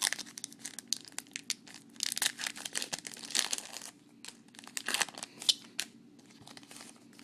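Trading-card pack wrapper being torn open and crinkled by hand, in irregular crackling bursts that die down about six seconds in.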